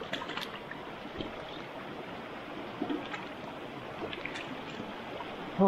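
Small stream running steadily over rocks, with a few faint clicks and splashes.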